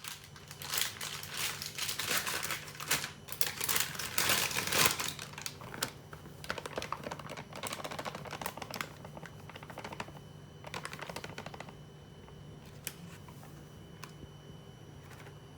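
Close-up handling noise: a dense flurry of crackling, rustling clicks for about the first five seconds, thinning to scattered ticks, over a steady low hum.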